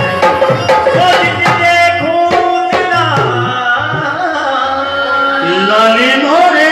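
Live qawwali music: harmoniums holding chords under a steady beat on hand drums, with a singing voice that sweeps upward near the end.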